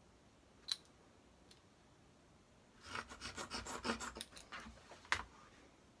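A marking pen scratching in a quick run of short strokes as a dart line is drawn along a clear acrylic ruler on fabric, with a sharp click about a second in and another just after the strokes stop.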